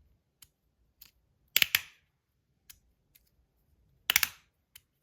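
Titanium fidget slider (Magnus Rail V2) being slid and snapped back and forth: two loud bursts of sharp metal clicks about two and a half seconds apart, with faint ticks of handling between them.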